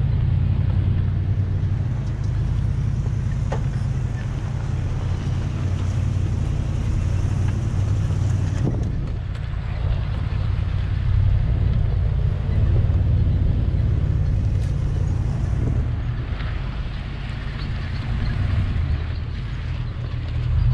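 A vehicle's engine running, a steady low rumble with little change in level.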